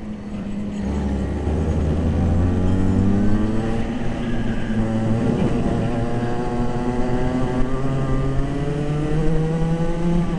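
Racing kart engines heard from on board a kart, its own engine and karts close ahead revving up and down through the laps. The pitch climbs from about a second in, drops around the middle and climbs again near the end.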